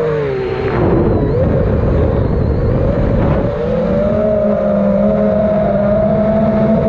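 FPV quadcopter's motors and propellers whining over a rush of wind. The pitch falls in the first second, then settles into a steady, slightly rising whine from about halfway through.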